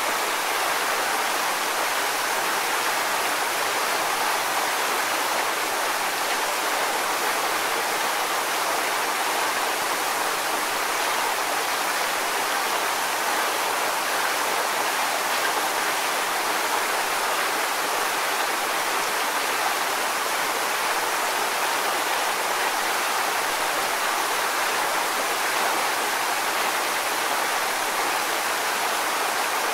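Water spilling and splashing steadily over a low, stepped waterfall of stone blocks into a shallow pool, a continuous even rush with no breaks.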